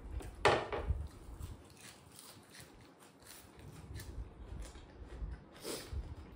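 Close-up eating sounds: chewing and mouth noises with small clicks of fingers and food on plates, and two louder short noises about half a second in and near the end.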